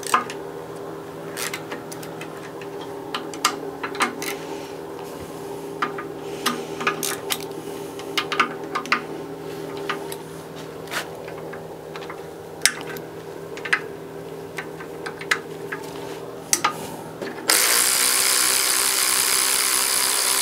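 Ratchet and socket undoing the water pump bolts on a Honda R18 engine block: scattered sharp clicks and metal taps over a steady background hum. Near the end a power tool runs loudly and steadily for about three seconds.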